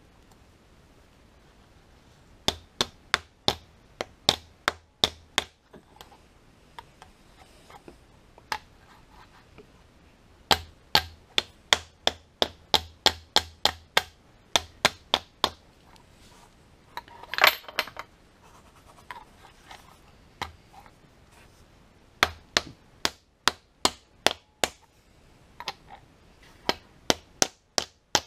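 Rubber mallet striking a metal seal-installer disc to drive a new differential output shaft seal into a C5 Corvette's differential cover: runs of sharp knocks, about three a second, with pauses between. A single louder, longer clatter comes a little past halfway.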